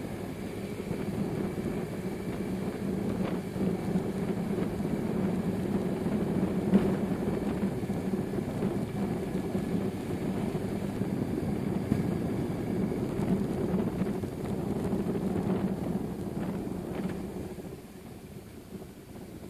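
BMW R1100RS boxer-twin engine running steadily while the motorcycle is ridden, heard from the rider's seat. It drops noticeably quieter near the end.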